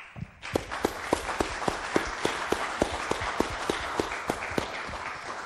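Audience applauding at the end of a talk, with one nearby pair of hands clapping about three or four times a second over the crowd; the applause dies away near the end.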